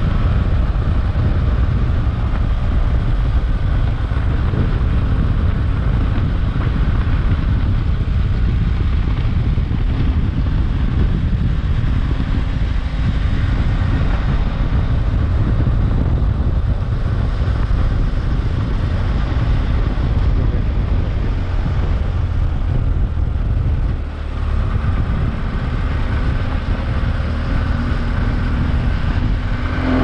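BMW F800GS parallel-twin engine on its stock exhaust, running steadily on the move, with one brief dip in level about three-quarters of the way through.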